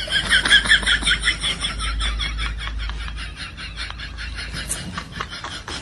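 A rapid, even run of short high-pitched chirps, about six a second, fading gradually toward the end, over a low steady hum.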